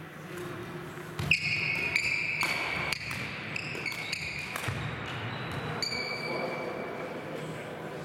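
Badminton rally on a wooden hall floor: sharp racket strikes on the shuttlecock, the loudest about a second in, with short high squeaks of players' court shoes on the floor between them.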